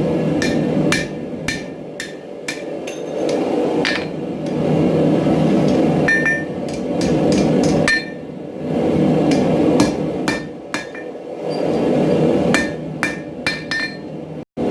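Hammer blows on steel at an anvil, struck at an irregular pace with a short metallic ring after many of them, over a steady rushing noise. A brief cut to silence comes just before the end.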